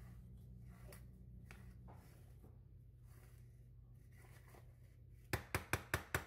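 Silicone spatula smoothing cheesecake batter in a metal springform pan: faint soft scrapes over a steady low hum, then, near the end, a quick run of about eight sharp taps, several a second.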